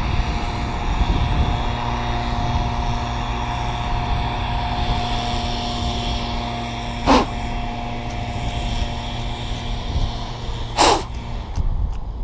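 Racing quadcopter's motors and propellers running with a steady whine, broken by two short sharp sounds about seven and eleven seconds in; the motor tone stops shortly before the end.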